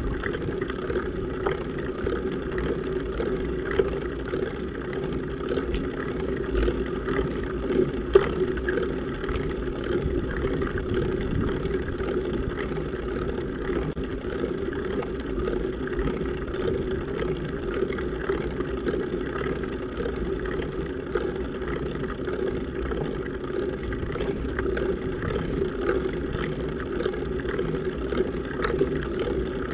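Steady rumbling road noise and vibration picked up by a handlebar-mounted bike camera on a bicycle climbing slowly, with a few light knocks and one sharper knock about eight seconds in.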